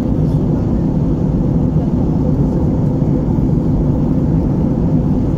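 Steady cabin drone of an easyJet Airbus A320-family jet airliner in flight, heard from a window seat: engine and airflow noise with a faint steady hum running through it.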